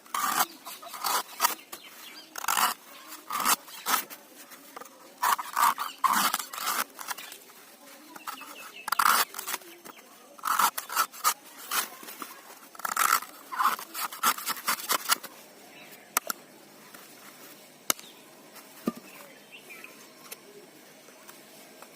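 Fresh coconut being chopped with a knife: sharp blows in quick irregular runs for about fifteen seconds, then only a few scattered light knocks.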